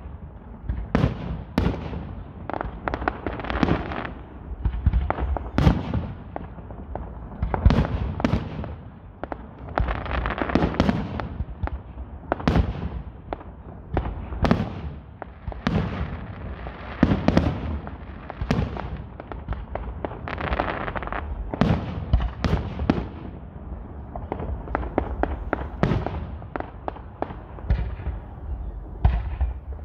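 Aerial fireworks going off in a steady barrage: dozens of sharp bangs and pops, often several a second, over a continuous rumble and crackle.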